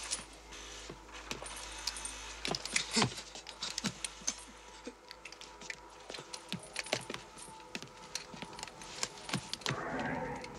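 Irregular light clicks and small metallic clinks, many of them scattered through, over a faint steady hum. Near the end a brief, louder rushing noise rises and falls.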